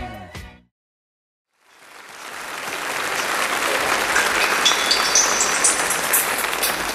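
A disco track fades out, then after about a second of silence applause swells up and grows louder, with a quick run of rising high notes near the end.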